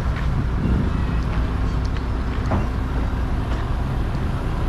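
FAW JH6 heavy truck hauling a 75-ton excavator on a lowboy trailer, rolling slowly past with a steady low diesel rumble.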